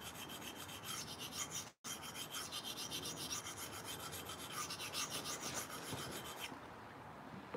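Knife blade scraped in rapid, rhythmic strokes across a coarse handheld sharpening stone (below 250 grit), setting the edge bevel from heel to tip. The strokes stop about a second before the end.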